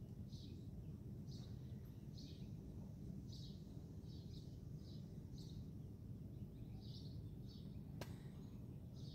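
Faint outdoor background: a bird chirping over and over, short high chirps every half second to a second, over a low steady rumble. A single click sounds near the end.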